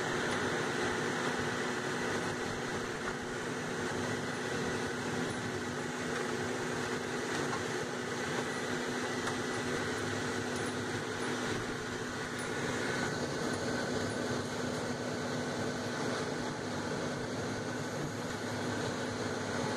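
Steady road and engine noise inside a moving car's cabin, with a constant low hum under an even rush of tyre and air noise.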